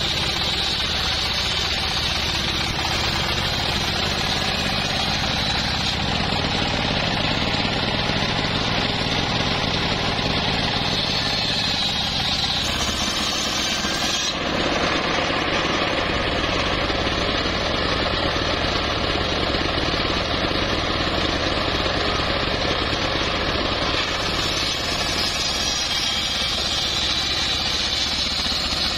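Homemade circular sawmill ripping teak logs lengthwise. A steady machine drone runs under a high whine from the big blade in the cut.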